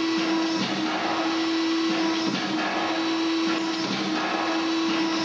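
Boschert CNC punching machine running a hinge-punching program at slow test speed: a steady machine whine interrupted about every second and a half as the punch cycles and the sheet is repositioned.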